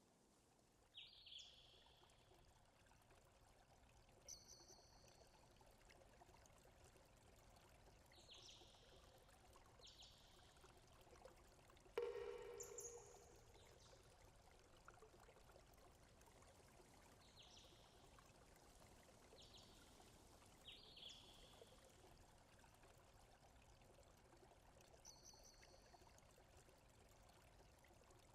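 Near silence: faint outdoor ambience, a steady hiss with short, high bird chirps scattered through it, one louder about twelve seconds in.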